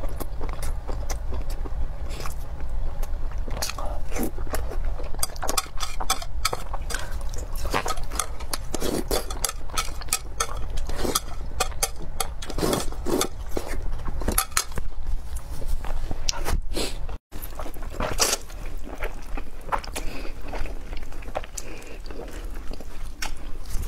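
Close-miked eating sounds of braised pork and noodles: wet chewing, mouth smacks and slurping, in many short clicky strokes. The sound cuts out for an instant about two-thirds of the way through.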